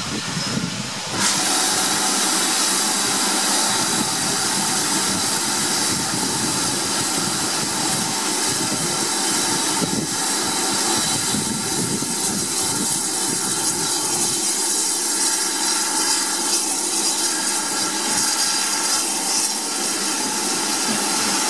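1953 Hunslet Austerity 0-6-0 saddle tank steam locomotive moving off with its train, steam hissing steadily from its open cylinder drain cocks; the hiss comes on suddenly about a second in.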